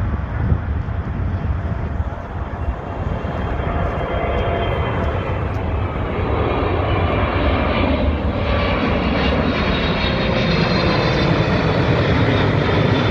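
Airplane engines running loudly, with faint engine tones that glide in pitch; the sound grows louder about halfway through.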